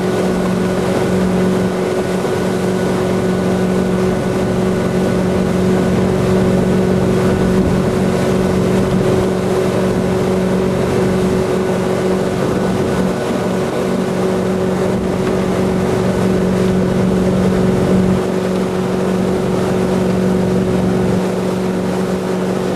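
Centurion Typhoon wakeboard boat's inboard engine running steadily at towing speed, a constant hum over the rush of water churned up in its wake.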